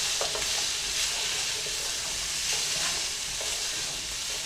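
Chopped celery, carrots and onion sizzling steadily in an oiled skillet while being stirred, with a few light scrapes of the utensil against the pan.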